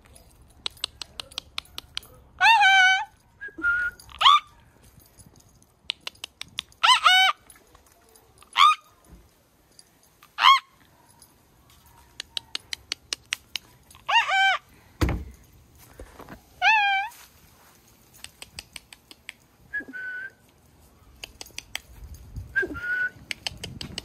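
Loud bird-like calls, each about half a second and wavering up and down in pitch, repeated about eight times, with a few short flat whistled notes between them. Runs of rapid faint clicking fill the gaps, and there is a single low thump about two-thirds of the way through.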